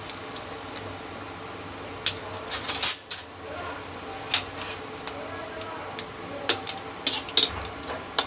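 Whole dried red chillies frying in hot oil in a kadhai for a tadka, crackling with sharp, irregular pops. A metal spoon stirs against the pan near the end.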